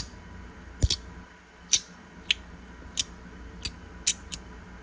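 Black Dog Labs magnetic fidget slider being slid and turned, its pieces snapping into place with about seven sharp clicks at uneven intervals.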